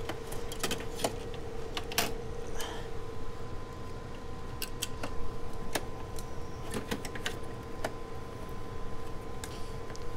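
Metal PCIe riser bracket with a graphics card being lowered and seated in a rack server chassis: irregular clicks, taps and light metallic clinks of sheet steel and cables, over a steady hum.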